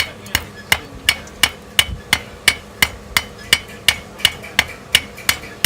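Blacksmith's hammer striking hot metal on an anvil in a steady rhythm, about three blows a second, each with a short ring: hammering out one side of a forged leaf.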